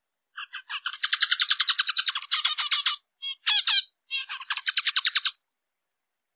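Zebra finch singing in short phrases: a few single notes, then a fast run of repeated notes about ten a second, a brief pause with a couple of notes, and a second fast run that stops about a second before the end.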